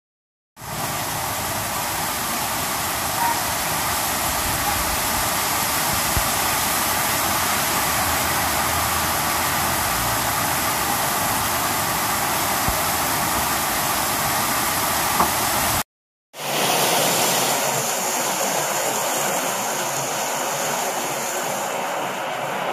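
Heavy rain falling as a dense, steady hiss, with a few faint ticks. It cuts out for about half a second roughly two-thirds of the way through, then comes back thinner, with less low rumble.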